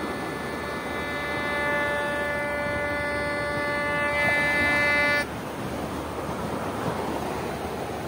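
Metal detector sounding a steady, buzzy target tone as its search coil passes over buried metal in wet beach sand; the tone cuts off suddenly about five seconds in. A steady rush of surf and wind runs underneath.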